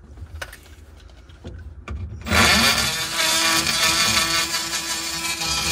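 Handheld power drill cutting a hole in the truck's dash for a gauge: it starts about two seconds in, its pitch rising as it spins up, then runs steadily while cutting.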